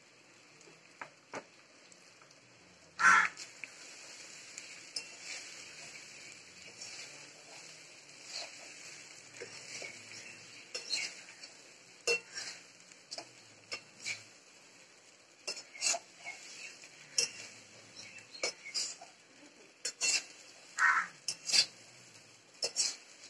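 A metal spoon stirring flattened rice in a metal cooking pot, scraping and clinking against the pot at irregular moments. There is a loud clink about three seconds in and a ringing clink near the end.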